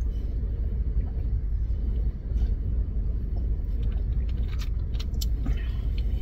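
Steady low rumble of a car idling, heard from inside the cabin. About four to five seconds in there are a few small clicks from a plastic soda bottle being capped.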